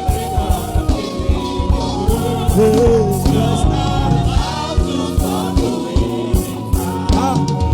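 Live gospel praise music: voices singing over a band with a steady drum beat.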